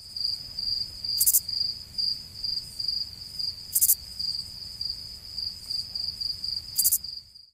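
Crickets chirping in a steady, high pulsing trill, with three brief louder bursts about two and a half seconds apart.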